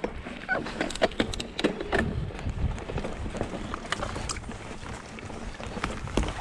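Mountain bike riding over a rocky trail: irregular knocks and rattles from the tyres and bike over stones, over a steady low rumble of wind on the microphone.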